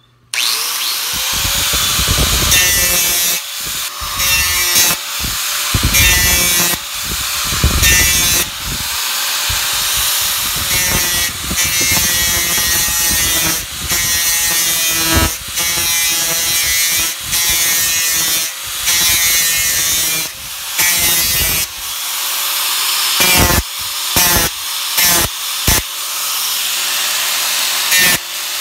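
Electric angle grinder with a 50-grit disc running and grinding the steel edge of an axe bit, a steady motor whine with a grinding hiss. The grinding comes and goes as the disc is passed along the edge, with more frequent short breaks near the end. The bit is being reshaped to straighten a ragged edge and clean off burrs.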